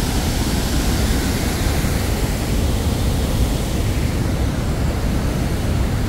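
Steady, loud rush of a large waterfall, whitewater pouring over rock ledges.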